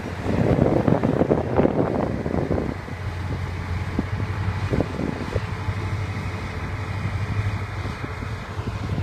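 Preet combine harvester running steadily with a low engine hum. Wind buffets the microphone hard for the first two or three seconds.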